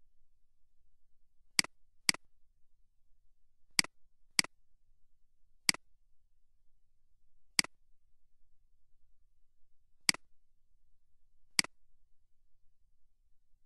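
Computer mouse button clicking eight times at uneven intervals, twice in quick pairs about half a second apart.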